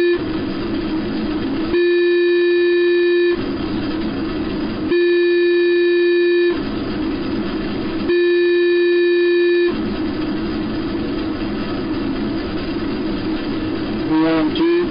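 Synthesized numbers-station interval signal: three long, steady electronic beeps, each about a second and a half, repeating about every three seconds over a constant hiss of radio static. After the third beep only the static goes on.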